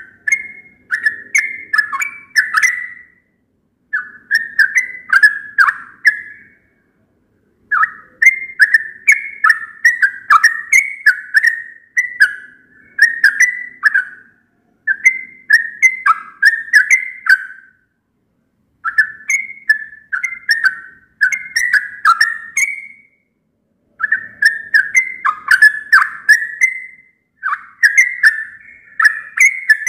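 Yellow-vented bulbul (trucukan) singing: phrases of quick whistled notes, each a few seconds long, repeated with short pauses between.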